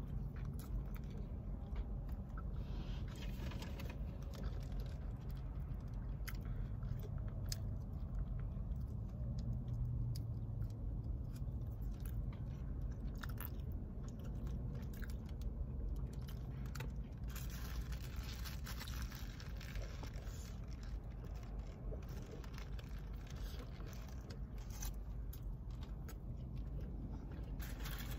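Close-up chewing and biting of a cheeseburger, with crinkling of its foil wrapper and many small clicks and smacks, over a steady low hum.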